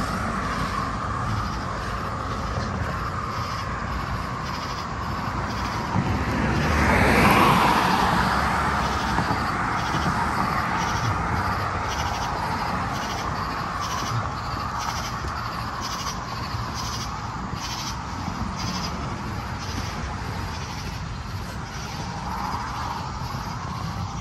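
Street noise while moving along a road: a steady hum with a light ticking almost twice a second, and a vehicle passing about six seconds in, swelling and fading.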